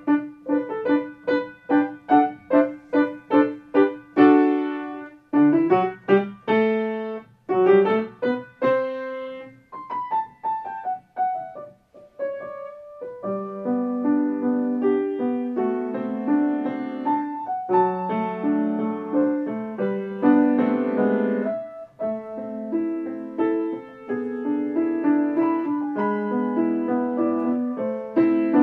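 Grand piano played solo: repeated short chords about two a second, a falling run of notes around ten seconds in, a brief pause, then a fuller, flowing passage with held notes.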